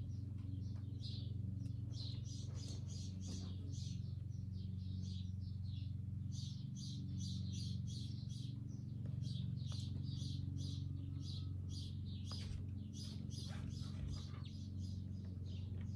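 Small birds chirping repeatedly in quick short notes over a steady low hum.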